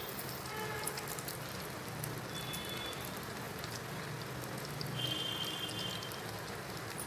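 Egg-coated paratha and spilled beaten egg frying in ghee on a hot tawa: a steady sizzle with light crackling.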